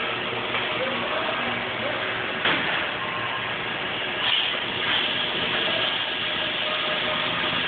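Steady hiss and hum of machinery in an automated work cell, with a couple of short knocks a few seconds in.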